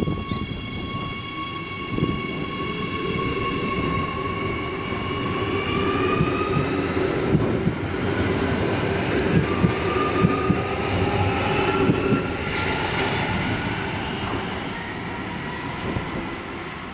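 Bombardier 4000 Class electric multiple unit pulling away and passing close by: a whine from its traction equipment rises slowly in pitch as it accelerates, over a low rumble. Wheels click over the rail joints as the cars go past, about halfway through.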